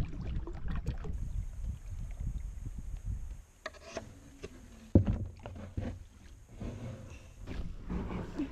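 Canoe on the water: paddle and water splashes over a low rumble of wind on the microphone. About five seconds in there is a single sharp knock.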